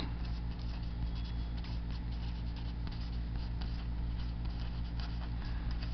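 Marker pen writing on paper: short scratchy strokes as a line of handwriting is written. A steady low electrical hum runs underneath.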